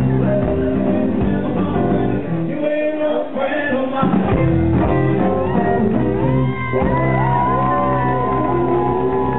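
A male singer belting a 1950s rock-and-roll song into a handheld microphone over guitar-led band accompaniment.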